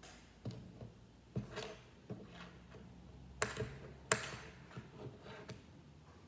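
Plastic LEGO pieces being handled and clicked together: a string of light, irregular clicks and knocks, the sharpest two a little past halfway.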